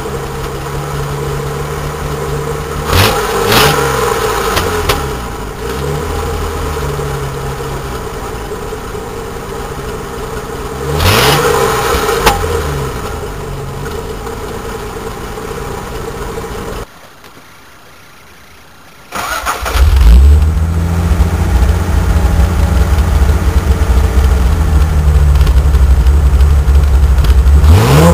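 Datsun 240Z straight-six idling through its stock exhaust, revved briefly twice. After a short break it idles noticeably louder through a 6-2-1 header and 2.5-inch exhaust, with a quick rev near the end.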